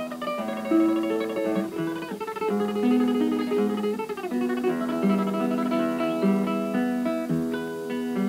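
Background music: acoustic guitar playing a Spanish-style melody of plucked notes.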